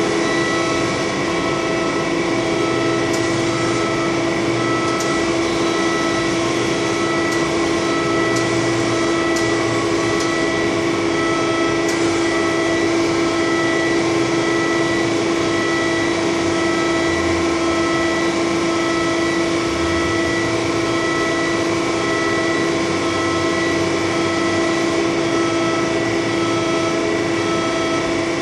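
Articulating boom lift's power unit running steadily as the boom moves the platform, a constant droning hum at one unchanging pitch. A few faint ticks come through in the first half.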